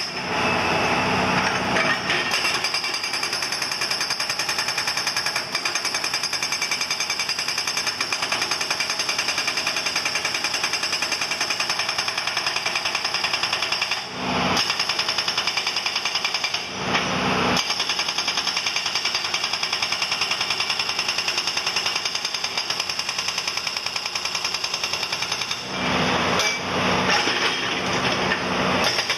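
Excavator-mounted hydraulic rock breaker hammering granite boulders in a rapid, steady run of blows, pausing briefly a few times.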